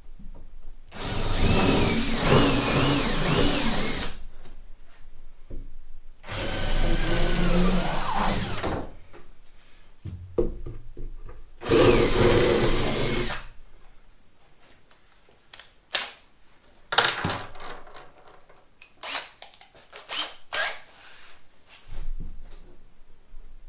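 Power drill boring through a plywood bulkhead in three bursts of a few seconds each, its motor pitch wavering under load as the hole is enlarged step by step with bigger bits. Scattered sharp clicks and knocks follow in the second half.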